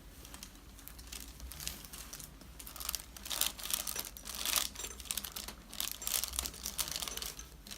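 Paper cover on a chiropractic treatment table crinkling and rustling in irregular bursts as the patient's body is shifted and worked on. The crinkling grows busier about three seconds in.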